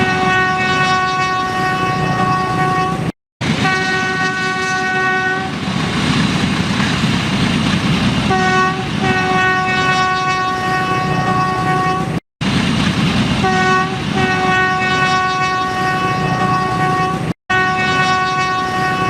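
Train horn sounding in repeated steady blasts, several of them a short toot followed by a long held note, over the continuous rumble and clatter of the moving train. The horn pauses for a few seconds in the middle, and the sound drops out to silence for an instant three times.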